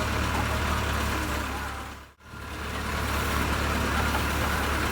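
Diesel engine of a JCB 3CX backhoe loader running steadily at idle. The sound fades out and back in about two seconds in.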